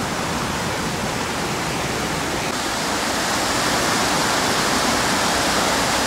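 Steady rush of white water from a tumbling mountain stream with small waterfalls, growing a little louder about halfway through.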